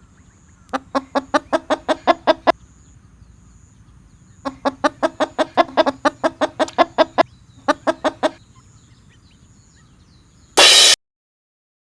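Eastern spot-billed ducks quacking in rapid runs of calls, about six a second, in three bouts, the middle one the longest. Near the end a brief loud burst of noise, then dead silence.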